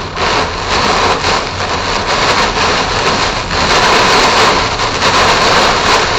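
Heavy thunderstorm rain hitting a moving car, with wind and tyre noise, heard from inside the cabin as a steady loud rush.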